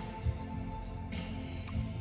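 Music playing in the background, with a brief knock about a quarter second in.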